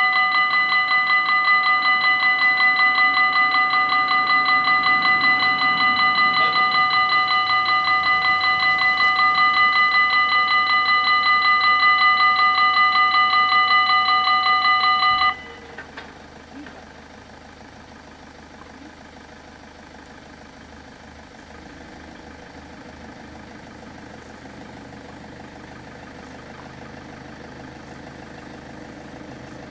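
Level-crossing warning bells ringing with a loud, rapid pulsing ring while the barriers lower to warn of an approaching train; they cut off suddenly about fifteen seconds in, once the barriers are down. A much quieter low engine rumble follows, growing slightly toward the end.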